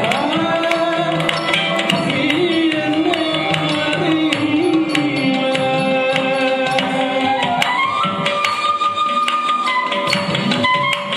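Carnatic-style music accompanying Mohiniyattam dance: a melodic line with gliding, ornamented pitch over regular hand-drum strokes.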